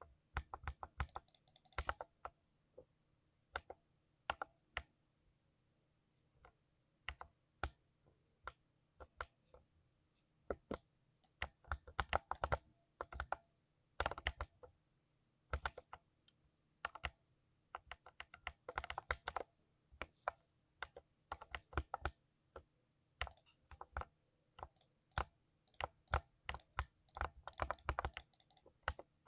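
Typing on a computer keyboard: irregular key clicks, sometimes single and spaced apart, sometimes in quick runs of many keystrokes, with short pauses between.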